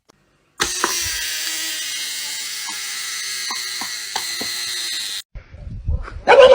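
A small electric motor buzzing steadily for about four and a half seconds, with a few light clicks, then cutting off suddenly.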